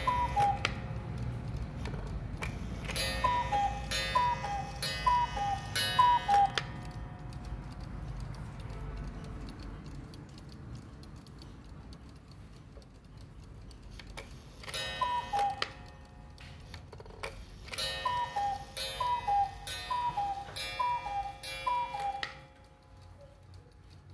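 Mechanical Black Forest cuckoo clock calling: the two-note cuckoo, high then lower, repeats in two runs with clicks from the mechanism between the calls. The first run comes a few seconds in and the second, longer one about two-thirds of the way through.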